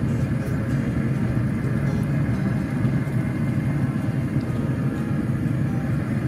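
A steady low rumble with no beat and no distinct knocks or tones.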